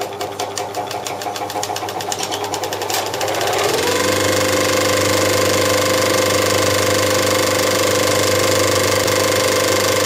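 Victor 16mm film projector coming up to speed: its intermittent film mechanism clatters in quickening clicks, then about four seconds in the motor's whine rises and settles into a steady running whir with a low hum.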